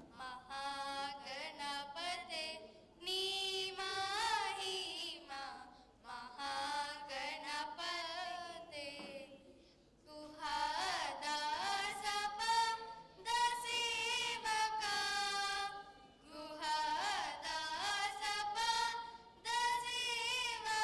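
Two girls singing a prayer together into microphones, with no accompaniment. The long sung lines have held, wavering notes, broken by short pauses between lines.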